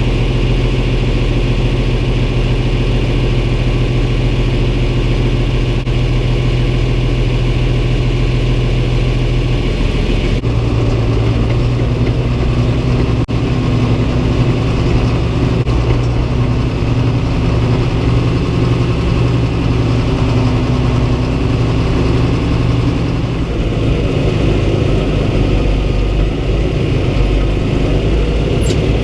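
Tractor engine running steadily, its pitch shifting about a third of the way in and again near the end.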